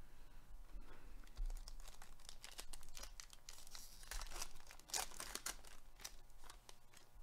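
Wrapper of a 2021 Panini Select baseball card pack crinkling and tearing as it is ripped open by hand. The crackling comes in dense runs, loudest about five seconds in.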